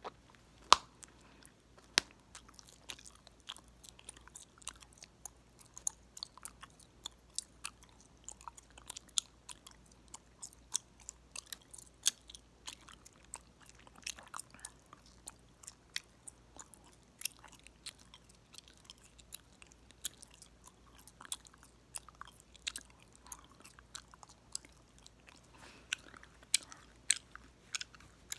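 Chewing gum close to the microphone, popping and snapping it: sharp clicks come irregularly, a couple each second, the loudest about a second in.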